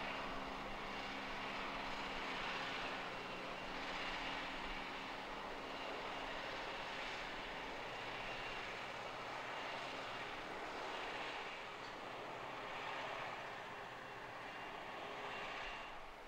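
Krone BigX 650 self-propelled forage harvester running steadily while chopping standing maize: a dense rushing drone that swells and eases every second or two. A tractor engine's lower hum is heard under it for the first couple of seconds.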